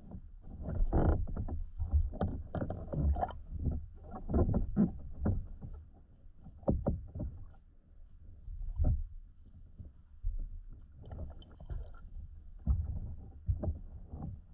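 Pool water moving around an underwater camera, heard through its submerged housing: irregular muffled sloshing and knocks, mostly low-pitched, with a few brief clicks.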